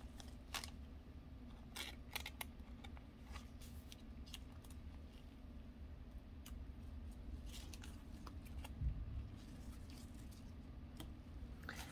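Faint, scattered clicks and light rustles of trading cards and a clear plastic penny sleeve being handled with nitrile gloves, over a low steady hum.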